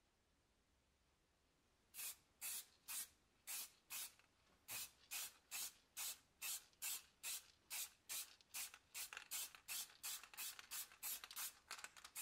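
Aerosol can of acrylic matt lacquer sprayed in short hissing bursts, about two to three a second, starting about two seconds in, to seal the flaking paint on a rusty steel plate.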